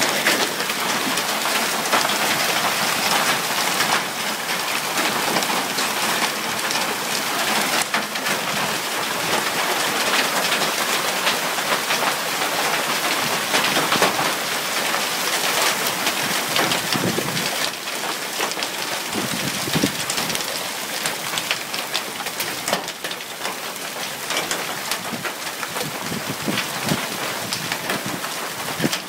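Hail falling hard, the stones not quite golf-ball sized: a dense patter of impacts with sharper single knocks among them. It eases slightly about two-thirds of the way through.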